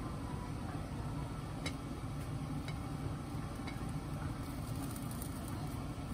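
Kitchen sounds during cooking: a steady low hum with three faint light clicks about a second apart.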